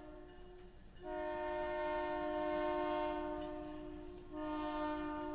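Locomotive air horn of an Indiana Harbor Belt EMD SW1500 switcher sounding a chord in long blasts: one blast ends just as the sound opens, a long one starts about a second in, and another follows near the end.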